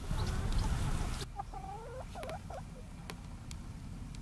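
Hens clucking, a few short calls that bend up and down, about a second and a half in. Before them a loud rushing noise fills the first second or so and cuts off suddenly.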